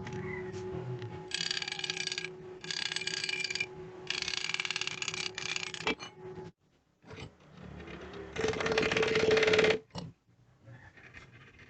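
Homemade drill press built from a washing-machine motor and gearbox, running with a steady hum while the bit cuts into steel in three noisy bursts. It stops suddenly about halfway, and a louder burst of cutting noise comes near the end.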